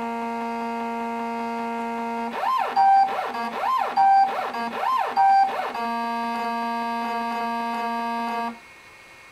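Two 3D-printer stepper motors, driven by a RAMPS 1.4 board and using a computer power supply as a sounding board, playing music as buzzy pitched notes. A held two-note chord gives way to a run of quick pitch sweeps up and down, then another held chord that cuts off suddenly near the end.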